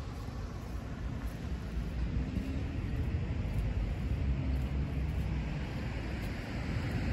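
Steady road traffic noise, growing a little louder from about two seconds in as a vehicle passes.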